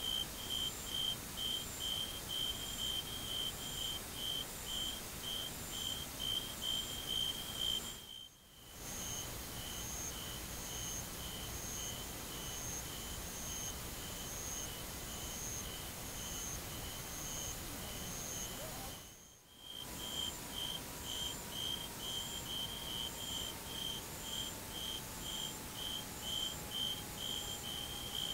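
Insects chirping in the summer field: a high, pure-toned chirp repeating steadily about two to three times a second over a faint hiss. It drops out briefly twice and picks up again.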